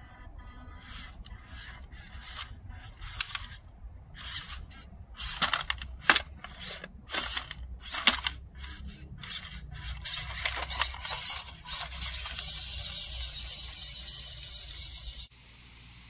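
WPL C24-1 1/16-scale RC crawler truck's electric motor and gearbox whirring in many short stop-start bursts as it is driven over stones, running more steadily for the last few seconds before cutting off suddenly.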